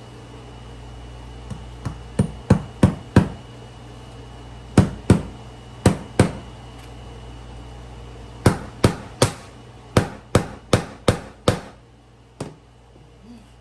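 Hammer driving nails, in bursts of quick blows: a couple of light taps then four strikes, two pairs, a run of eight, and one lighter tap near the end.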